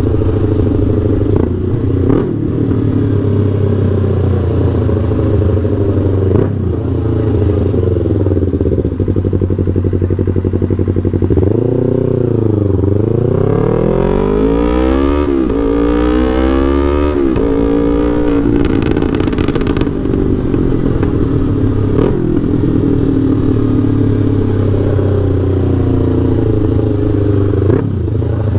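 Yamaha R3's 321 cc parallel-twin engine running through a Full Pro aftermarket exhaust with an ECU remap, at a steady note. About halfway through the pitch dips, then climbs in a few rising sweeps with short breaks between them before settling back to a steady note.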